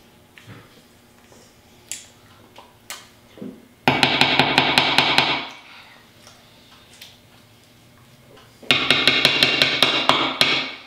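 Rapid metallic tapping with a ringing tone, in two runs of about a second and a half and two seconds: a spatula knocked against a stainless steel mixing bowl to shake off the cake batter.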